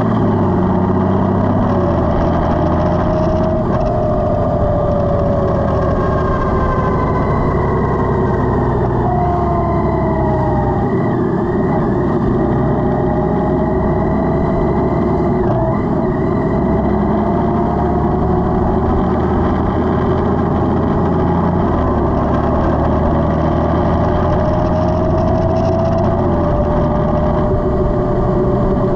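Honda Gold Wing DCT's flat-six engine running at road speed under a steady rush of wind and road noise, heard from the rider's seat. Its pitch rises and falls slowly as the speed changes.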